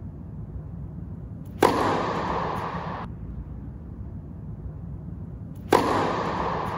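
Tennis serves struck twice, a sharp racket-on-ball crack each time. Each crack is followed by about a second and a half of hissing noise that fades a little and then cuts off abruptly. A low steady rumble runs underneath.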